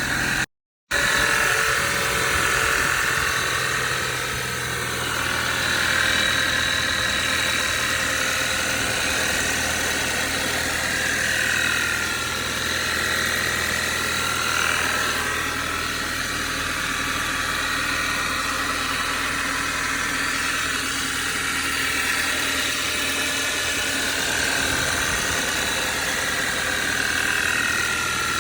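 Audi 2.0 TFSI gen2 turbocharged inline-four idling from a cold start, with a steady drone, a whine that wavers in pitch and a knock under it, which the owner likens to a worn piston pin though he is not sure.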